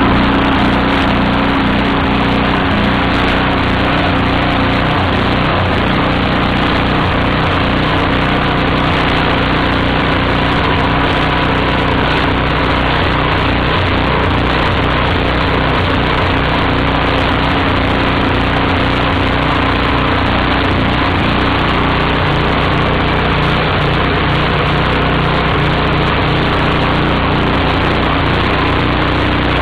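Small generator engine running steadily, fuelled by gasoline vapour from an ultrasonic transducer with HHO gas added through flashback arresters.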